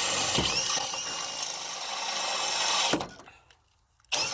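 Power drill running as it bores through the trailer wall, then stopping suddenly about three seconds in, with a short burst of drilling just before the end.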